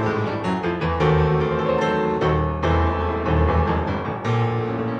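Piano music: a melody played over low bass notes, each note starting crisply and ringing on.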